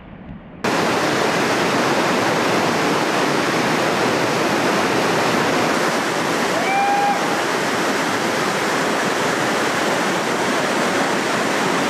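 Loud, steady rush of a big-volume whitewater rapid, cutting in sharply under a second in. About seven seconds in, a short pitched call rises briefly above the water.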